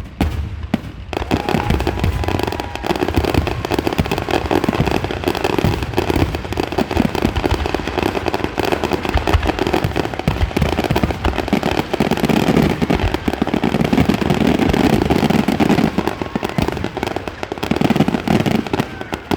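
Aerial fireworks going off in a rapid, unbroken barrage of bangs and crackling, packed densely from about a second in.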